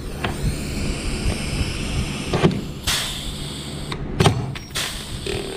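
Pneumatic air rivet gun setting 1/4-inch pop rivets: about two seconds of compressed-air hiss, then a few sharp clicks and snaps as the rivets are pulled tight.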